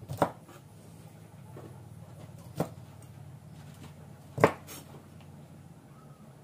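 A cleaver chopping through a bundle of string beans onto a wooden cutting board: three separate knocks about two seconds apart, the third the loudest, over a faint steady low hum.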